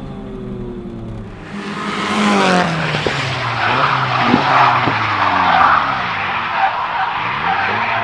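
Turbocharged Nissan Silvia S15 SR20DET four-cylinder heard from inside the car, its note falling and rising as the revs change through a drift. Loud tyre squeal and skidding noise comes in about one and a half seconds in and carries on.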